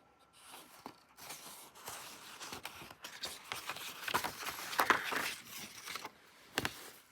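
Rustling and crackling handling noise with many small clicks, loudest about five seconds in and ending with one sharper crackle near the end.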